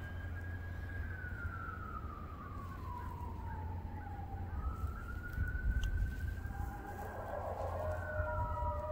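Fire engine siren wailing: one tone that slowly falls and rises in pitch, with another fall near the end, as a steady two-note tone starts up. A low rumble runs underneath.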